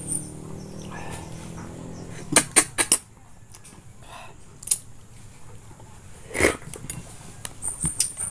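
A metal spoon clicking and scraping against halved wild passion fruit as the pulp is scooped out and eaten, with a quick cluster of sharp clicks about two and a half seconds in and a few single clicks later on. Mouth sounds of eating the pulp come in between.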